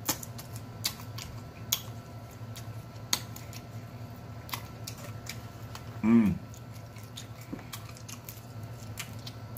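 Snow crab leg shells cracking and snapping in a string of sharp, irregular clicks as they are broken apart by hand. About six seconds in there is a short hummed "mm", and a low steady hum runs underneath.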